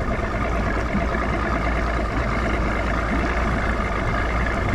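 Boat's outboard motor running steadily at trolling speed.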